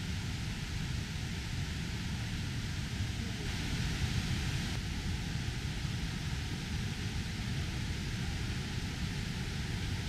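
Steady rushing noise of several waterfalls pouring into a pool, with a heavy low rumble.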